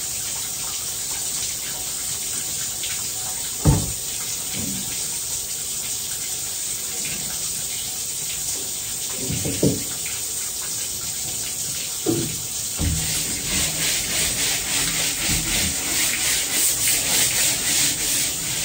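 Water running from a garden hose in a steady hiss, with a few knocks, while a cutting board is washed down after filleting fish. From about two-thirds of the way in, rhythmic scrubbing strokes on the board join the water.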